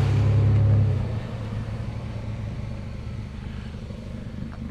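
A motor vehicle's engine rumbling, loud for about the first second and then dropping to a quieter, steady low rumble.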